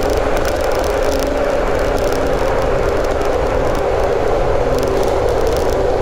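JR 415 series electric train running at speed, heard from inside the car: a steady rumble of wheels on rail with a constant hum from the traction motors, echoing inside the Kanmon railway tunnel.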